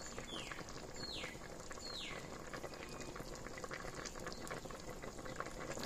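Chicken and vegetable soup simmering in an enamel pot: a steady bubbling with many small pops. Three short falling whistles sound about a second apart in the first half.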